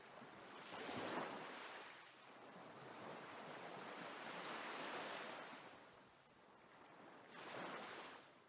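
Faint rushing, surf-like noise of a logo intro sound effect, swelling and fading three times: about a second in, through the middle, and again near the end.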